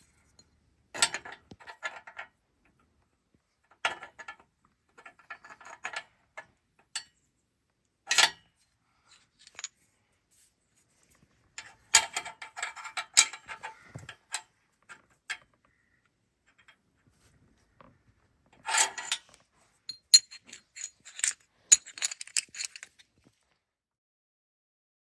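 Short clusters of metallic clinking and clattering, like small metal objects or tools being handled, coming several times with complete silence between them.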